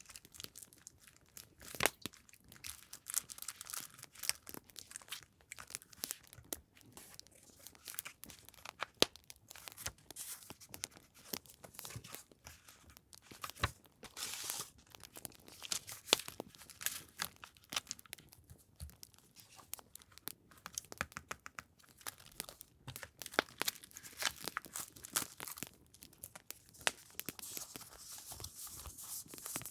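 Paper and packaging handled by hand, rustling and crinkling in irregular bursts with many small sharp clicks and taps.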